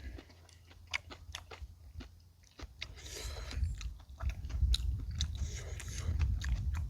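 A person chewing and biting into boiled pig's trotters, with many short wet clicks and smacks. A low rumble comes in about a third of the way through.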